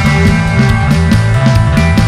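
Loud rock music from a full band, with a steady drum beat and a bass line moving underneath.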